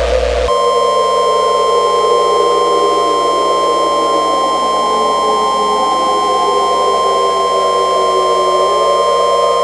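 Electronic weather-radio alert tone: a steady high pitch comes in about half a second in and holds. Underneath it, lower droning tones slide down and back up like a siren.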